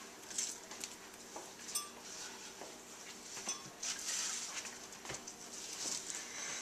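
Faint kitchen handling sounds: spinach leaves being pushed into a glass blender jar, with scattered light clinks and taps of dishes.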